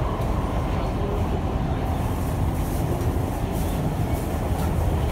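Siemens C651 metro train running along the track, heard from inside the car: a steady, dense rumble of wheels on rail and running gear, with faint light ticks about once a second.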